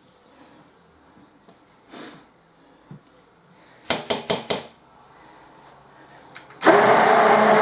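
Spatula scraping softly around a mixing bowl of soap batter, with a quick run of about five knocks about four seconds in. Near the end a stick blender switches on and runs steadily, blending the cold process soap batter.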